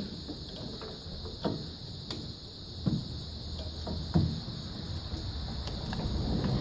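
Scattered metal clunks and knocks, about four in a few seconds, as a log is jacked up with a small sawmill, over a steady chorus of crickets; a low mechanical rumble builds near the end.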